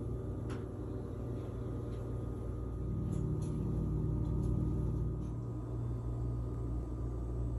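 A steady low mechanical hum, a little louder for a couple of seconds in the middle, with a few faint clicks.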